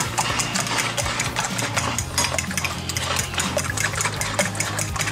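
Fork beating eggs and cream in a ceramic bowl: rapid, irregular clicks of the tines against the bowl with a wet slosh, over a steady low hum.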